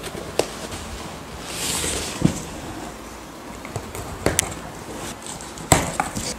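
Large cardboard shipping box being handled and moved: a string of irregular knocks and bumps, the loudest near the end, with a brief rustling scrape about a second and a half in.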